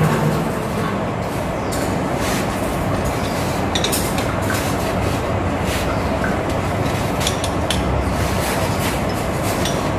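Steady rumbling machine noise of a metal-turning workshop, with scattered light metallic clicks and clinks as the lathe's chuck and tool post are handled by hand.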